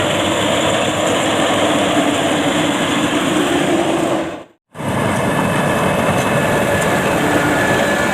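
Combine harvester engine running steadily at a constant level. The sound drops out completely for a moment about four and a half seconds in, then carries on the same, with a faint steady whine over it.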